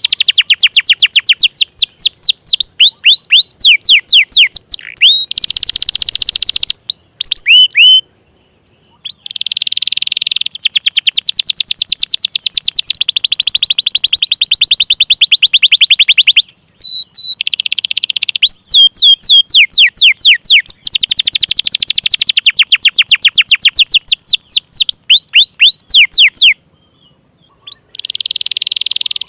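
Domestic canary singing: long rolling trills of fast, repeated downward-sweeping notes, broken by harsher buzzy phrases. It stops briefly twice.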